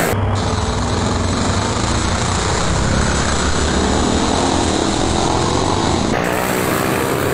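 Small modified motorcycle engines running flat out in a street race, heard from among the pack, a loud, steady engine racket. The sound shifts in character about six seconds in.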